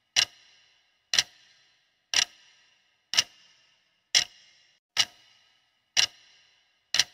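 Countdown-timer sound effect: a clock ticking once a second, eight sharp ticks, each with a brief ringing tail.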